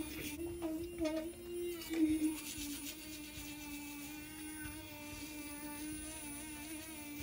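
Quiet background music holding one sustained low note that wavers slightly in pitch, with fainter higher tones above it.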